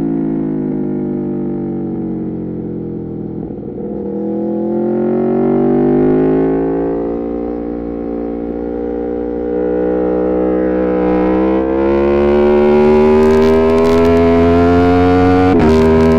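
Aprilia Tuono V4 Factory's V4 engine through an Arrow GP2 exhaust with the dB killer removed, at full track revs. The engine note falls for the first few seconds as the bike slows, then climbs steadily under hard acceleration, with a sudden drop in pitch near the end as it changes up a gear.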